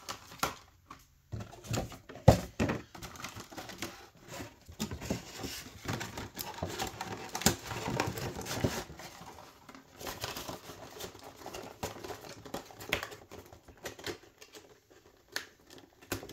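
Plastic packaging and a cardboard window box being handled and cleared away: a run of crinkling, crackles and small clicks, with a sharper knock about two seconds in.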